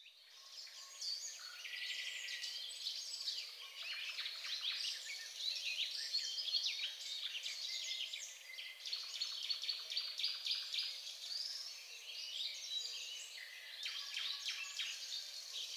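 Many birds chirping and calling together, a dense chorus of short chirps, trills and rapid clicking calls that fades in at the start and goes on without a break.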